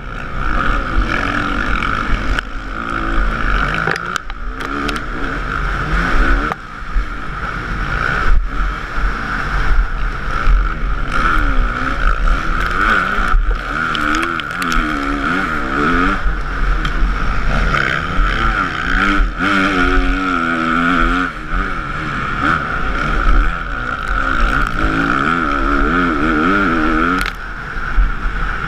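Motocross bike engine heard from a camera mounted on the bike, its revs rising and falling again and again as the rider races around the dirt track. Sharp knocks cut in now and then.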